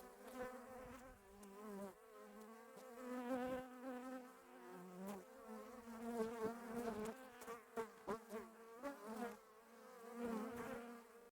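Bees buzzing, several wavering buzz tones that swell and fade as they fly close and away, cutting off suddenly at the end.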